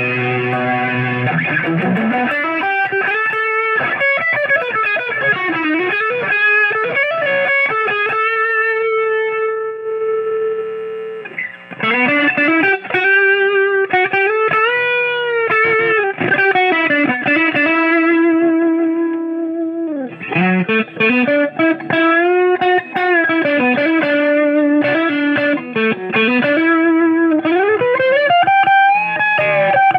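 Selder Stratocaster electric guitar played through an amp: a chord rings out, then a single-note lead line with string bends and slides follows. A long held note ends in a brief break about eleven seconds in, and the bent lead then carries on.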